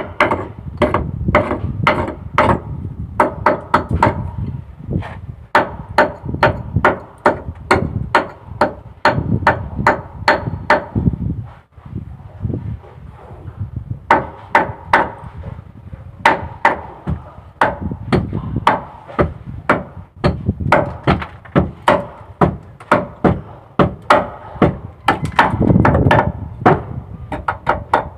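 A hand hammer knocking repeatedly on the boat's metal fittings, about three sharp blows a second, with a ringing note after each blow. The blows pause for about two seconds near the middle, then resume.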